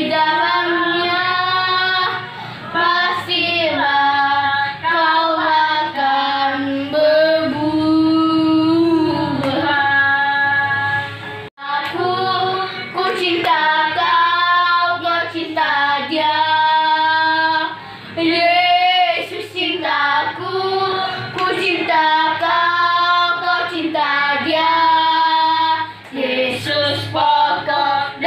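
Children's song: child and female voices singing a lively melody over backing music, with a brief sudden break about eleven and a half seconds in.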